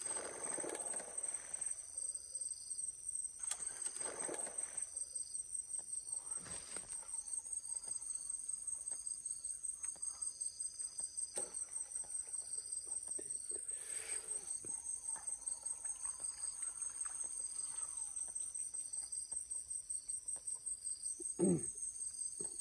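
Insects trilling steadily in a high, rapidly pulsing note, with a few short noisy sounds over it.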